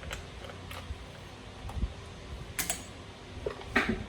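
Scattered light clicks and taps of small hand tools and screws being handled while the screws are taken out of an RC truck's pull-start cover. Two sharper clicks come about two and a half and nearly four seconds in.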